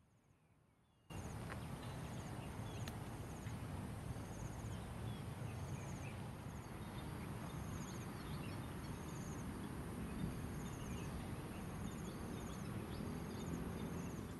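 Outdoor field ambience: a steady rushing background, with a short, high buzzy chirp repeating about once a second. It starts suddenly about a second in, after near silence.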